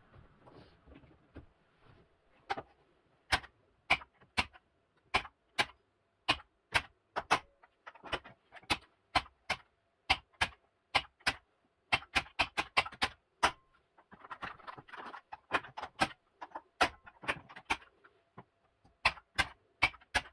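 Siemens modular contactor clacking as it pulls in and drops out, mixed with the clicks of the start and stop push buttons: many sharp single clicks, some in quick runs, as the self-latching circuit is switched on and off over and over.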